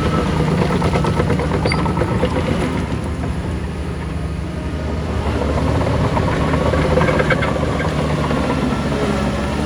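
Diesel engine of heavy earthmoving machinery running under load with a rattling clatter. It eases off about three to four seconds in and picks up again a couple of seconds later.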